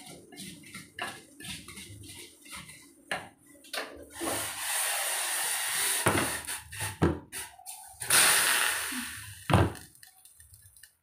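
Light knocks of a stone pestle working in a mortar, then tap water running into a kitchen sink in two spells, about four seconds in and again about eight seconds in. A sharp thud comes near the end.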